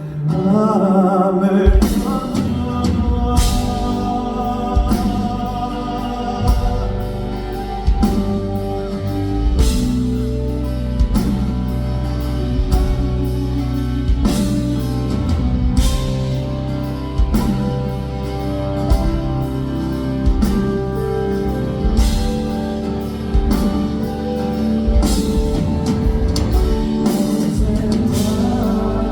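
Live band music from a concert hall: a full band with drum kit, bass and guitar comes in about two seconds in after a held note, with singing in it.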